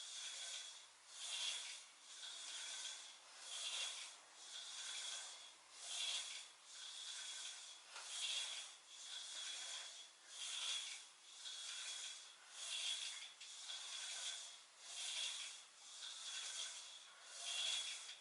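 Rhythmic swishing of a person doing weighted crunches: a rasping, rubbing sound that swells and fades once per repetition, about every two and a quarter seconds, eight times in a row.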